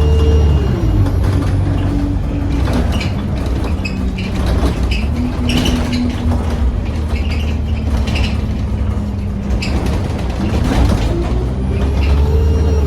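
A diesel bus engine eases down from a rev at the start and runs steadily at low revs with clicks and rattles. Near the end it revs up again as the bus pulls away, with a faint high turbo whistle rising and falling with the revs.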